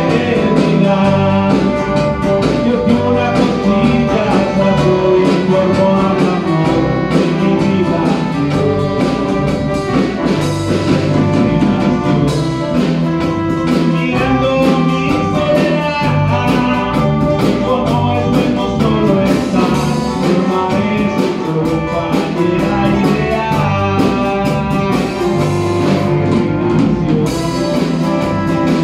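Live Christian band playing a song, with bass guitar, acoustic guitar, electronic keyboard and drum kit, while a man sings into a handheld microphone.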